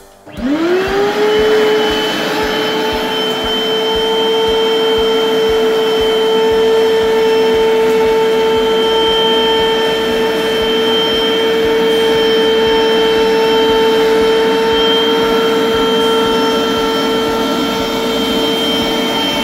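Upright vacuum cleaner motor starting up about half a second in, its whine climbing quickly to a steady pitch, then running steadily.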